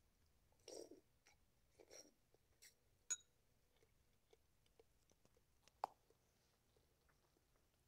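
Faint eating sounds: a metal spoon clinking against a ceramic soup bowl, with a few soft chewing noises. Two short soft noises in the first two seconds, a sharp ringing clink about three seconds in, and another sharp click near six seconds.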